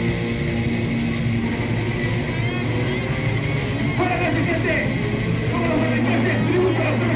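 Punk rock band playing live: distorted electric guitars, bass and drums at full volume, with a singer's vocal coming in about four seconds in.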